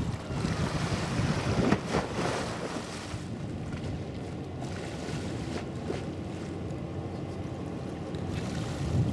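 Wind buffeting the microphone over a steady low drone from a passing general cargo ship and the wash of river water. The gusts swell from about a second in to about two and a half seconds, and again near the end.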